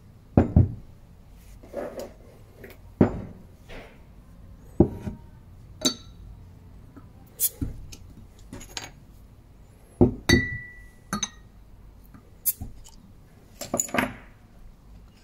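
A heavy glass beer mug and glass beer bottles being set down and handled on a wooden tabletop: a string of separate knocks and clinks, one about ten seconds in leaving a brief ringing tone.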